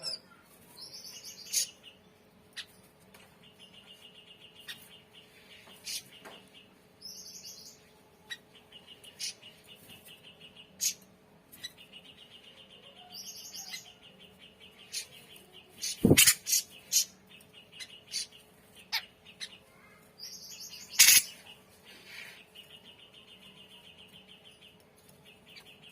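Grey-cheeked bulbul (cucak jenggot) calling in repeated fast, buzzy rattling phrases mixed with short rising whistled notes. Two sharp knocks stand out in the second half.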